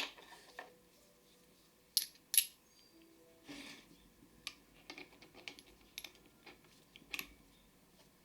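A string of light metallic clicks and clinks of small metal parts or tools being handled, with two sharper ringing clinks about two seconds in and a scatter of lighter ticks after.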